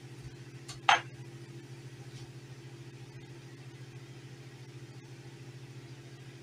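A steady low hum, like that of a running appliance or fan, with one brief sharp sound about a second in.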